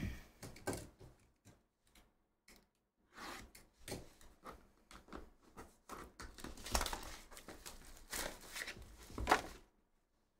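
Plastic shrink wrap being torn and crinkled off a sealed cardboard trading-card box, in irregular rustles and crackles with a few sharper clicks, thickest from about three seconds in until shortly before the end.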